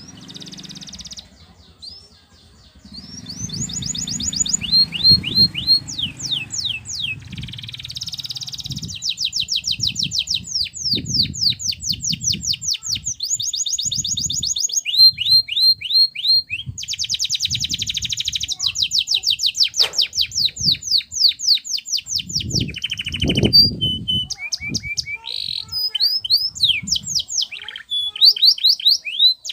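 Canary singing a long, continuous song of rapid trills: runs of quick repeated high notes that switch to a new pattern every second or two. Irregular low thumps sound underneath.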